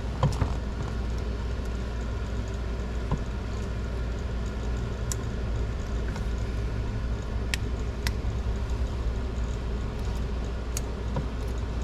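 Steady low hum with a few faint, sharp metallic clicks spread through it: a wrist-pin retaining clip being worked into its groove on a Kawasaki two-stroke piston.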